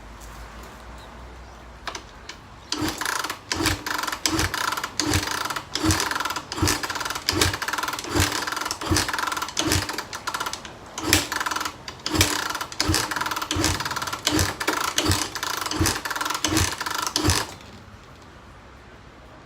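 2012 Suzuki RMZ250 fuel-injected single-cylinder engine being turned over in a starting attempt without catching, a rhythmic mechanical cranking with a thud about one and a half times a second. It begins about three seconds in and stops a couple of seconds before the end. The engine has spark, a new plug, a new air filter and fresh fuel but still won't fire.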